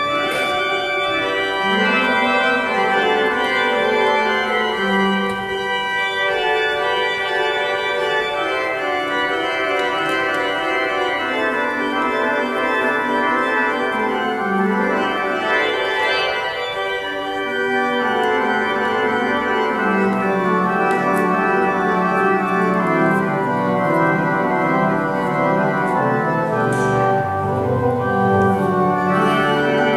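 Church organ playing the postlude: full, sustained chords, with a deeper bass line growing stronger about two-thirds of the way through.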